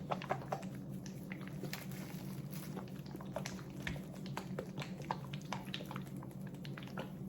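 Plastic applicator bottle of hair-colour creme and developer being shaken to blend the mixture: irregular clicks and sloshing from the bottle, over a steady low hum.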